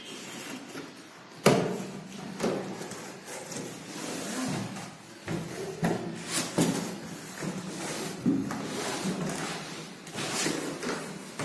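Large cardboard box being opened and handled: flaps bending, scraping and rustling, with irregular knocks and thumps. The sharpest knock comes about a second and a half in.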